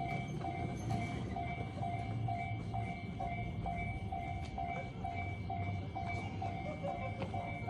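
Japanese railway level-crossing alarm ringing its electronic bell, a steady, evenly repeating ding about one and a half times a second, warning that a train is coming. A second, slightly lower ding joins in about six seconds in, over a low rumble.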